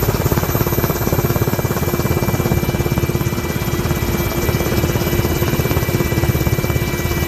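Helicopter in flight, heard from inside the cabin with the door open: a rapid, even chopping of the rotor with a steady whine over it.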